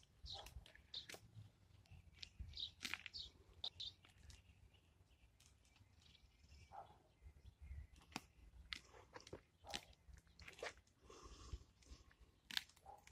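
Faint, scattered crunching and crackling of dry grass and weeds being pulled up by hand.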